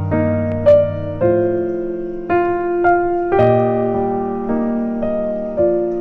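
Slow background piano music, one sustained note or chord struck about once a second and left to ring.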